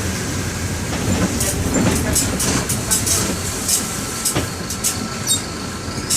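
Mercedes-Benz OF-1721 bus running, its OM-924 LA four-cylinder inline diesel giving a steady low rumble, with scattered clicks and a faint steady whine above it.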